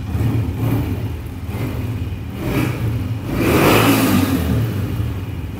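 Honda CG 125's single-cylinder four-stroke engine running just after start-up. The throttle is blipped once, about three and a half seconds in, before the engine settles back to idle.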